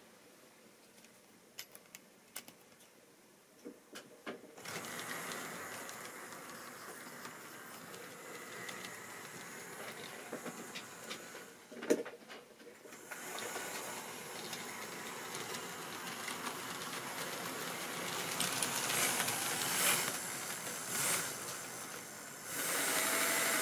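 Tri-ang model train running on the track: a steady whir of its small electric motor and wheels rattling over the rails, starting about four seconds in, with a short break and a click near the middle and growing louder near the end. A few sharp clicks sound in the quiet opening.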